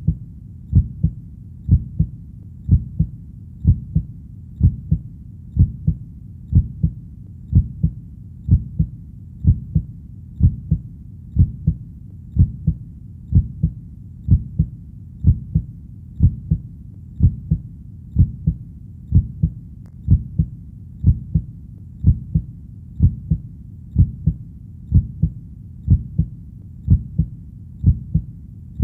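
A steady, slow heartbeat: each beat is a low double thump ('lub-dub'), repeating evenly at a little over one beat a second over a constant low background.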